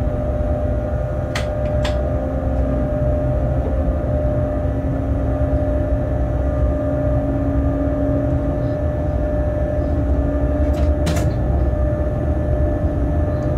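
Locomotive running light, heard from inside its cab: a steady rumble with a steady whine from the running gear and drive. A few short sharp clicks, two about a second and a half in and one near the end.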